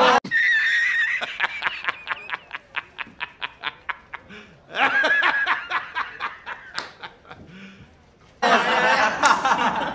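A man's hysterical staccato laughter: a high squeal, then a long run of rapid 'ha-ha-ha' pulses, about five a second, that gradually fade. A louder burst of laughter comes in near the end.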